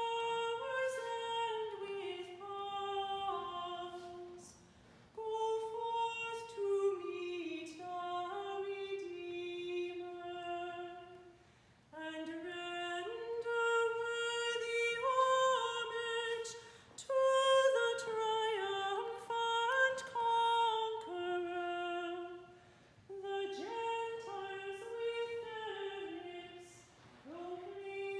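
A woman singing unaccompanied: a single slow melody line in phrases several seconds long, with short breaks between them.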